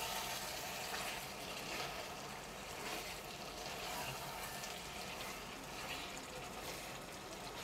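Chicken curry with chopped tomatoes sizzling steadily in a pan while it is stirred with a wooden spatula.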